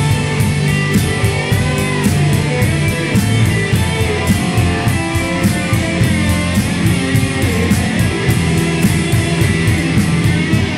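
Rock band playing live: electric guitars strummed over bass guitar and drums, with a steady, evenly spaced drum beat.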